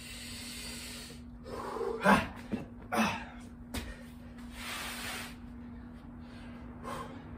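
A man breathing hard through a burpee: hissing exhalations and gasps, with two short loud grunts about two and three seconds in and a long breath out around the five-second mark.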